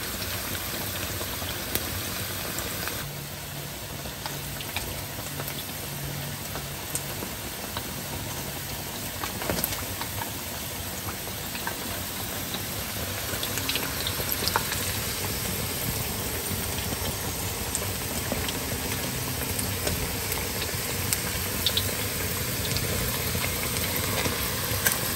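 Breaded chicken tenders deep-frying in a pan of hot oil: a steady sizzle with scattered small crackles and pops.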